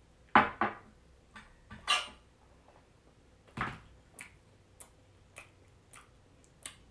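Tableware clatter at a meal: a few sharp knocks in the first four seconds, then a run of light clicks about every half second as a fork picks at food in a plastic takeout container.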